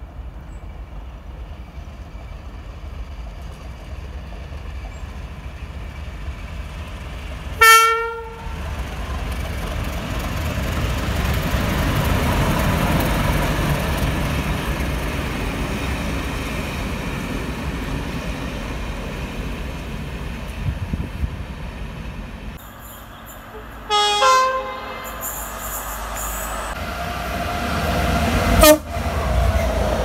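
Train horn sounding a short blast, then a locomotive-hauled passenger train running past with its engine and wheels rumbling for over ten seconds. After a cut, another short train horn blast sounds, and a further brief blast near the end.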